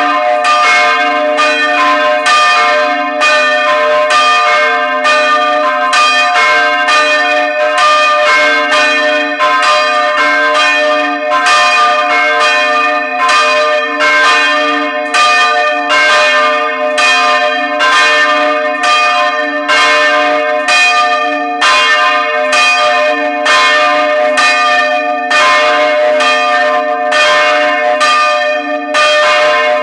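Several church bells swung in their wooden frame and rung together at close range. Clapper strikes come every half second or so in an uneven, overlapping pattern over a continuous ringing hum.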